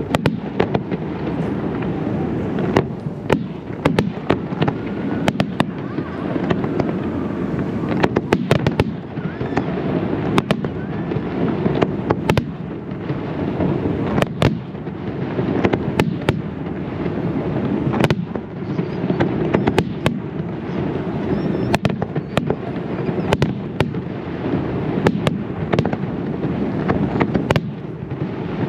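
Aerial fireworks display in a dense barrage: constant low booming from shell bursts, broken by many sharp cracks and bangs in quick succession.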